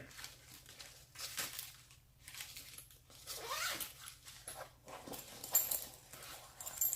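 Scattered rustling and light clicks of small gear and a fabric pouch being handled, with a few short scraping sounds a few seconds in.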